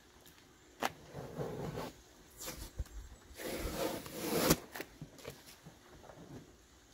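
Packing tape being ripped off cardboard boxes: two long tearing rips, the second growing louder and ending sharply about four and a half seconds in, with a few short crackles of cardboard.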